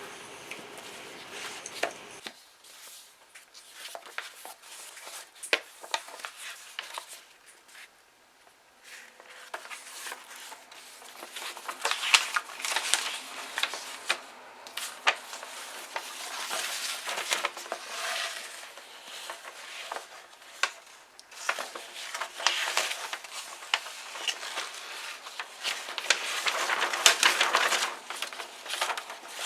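Pages of old thrifted books being turned and handled, the paper rustling and crinkling with small taps and clicks, in uneven bursts with a quieter stretch about eight seconds in.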